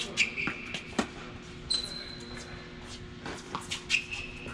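Tennis play on a court: sharp knocks of the ball being struck and bouncing, about seven in all, with three short high squeaks of shoes on the court surface.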